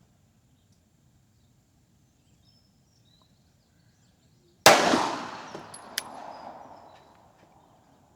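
A single 9mm pistol shot from a Glock 34 firing Winchester 147-grain ammunition, sharp and loud, a little under five seconds in. Its echo dies away over about two and a half seconds, with a short sharp click about a second after the shot.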